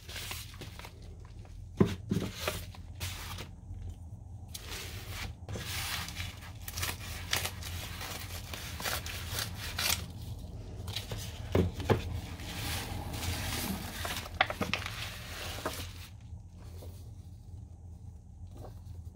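A padded kraft-paper mailer being handled and cut open with scissors: crinkling and rustling paper, scissor cuts and tearing, with a few sharp knocks, the loudest about two seconds in. The paper sounds turn quieter and sparser near the end.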